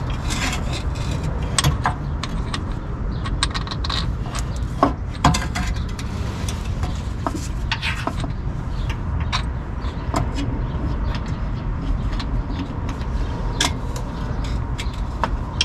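Scattered metallic clicks, clinks and light scrapes of bolts and a steel engine mount being handled while mount bolts are started by hand, over a steady low rumble.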